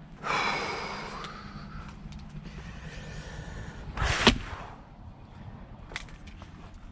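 Heavy breathing, then about four seconds in an axe blow lands on a log with a sharp crack as firewood is split, followed by a faint knock or two of wood.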